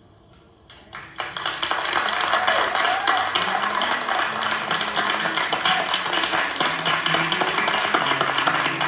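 Audience applause breaking out about a second in, steady and dense from then on, with music coming in underneath.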